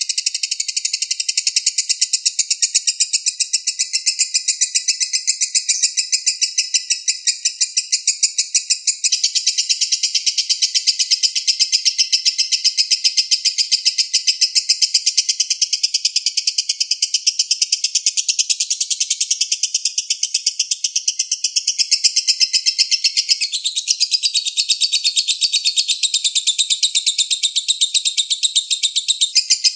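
High-pitched, very rapid continuous chirping trill of a small songbird, played as a bird-song tutor (masteran) recording for training caged songbirds.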